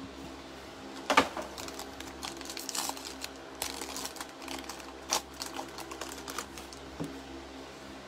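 Hard plastic card holders handled and set down on a table mat: irregular clicks and taps, the loudest about a second in.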